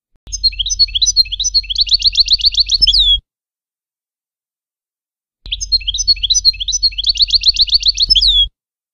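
European goldfinch song in the Levantine 'Shami' style, a tutor recording for teaching young goldfinches, played twice about five seconds apart. Each phrase runs about three seconds: scratchy twittering notes, then a fast even trill, ending on a falling note, with a low hum beneath.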